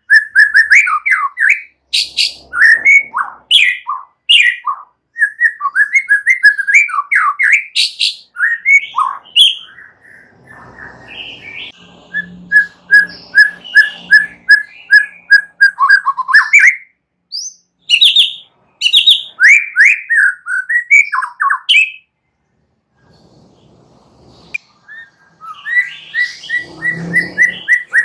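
White-rumped shama singing a long, varied song of quick whistles and chattering phrases, with a run of evenly repeated notes in the middle and a brief pause near the end before it starts again.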